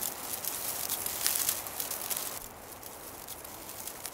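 Many thatching ants crawling over the dry pine-needle thatch of their mound, a dense, fine crackling rustle that drops to a quieter level about two and a half seconds in.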